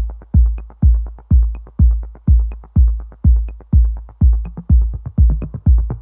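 Electronic background music with a heavy kick drum on every beat, about two beats a second, and light ticks between them.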